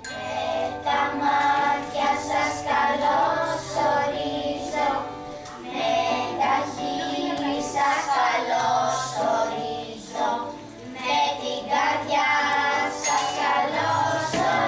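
A group of children singing a song together, accompanied by glockenspiels struck with mallets and an acoustic guitar.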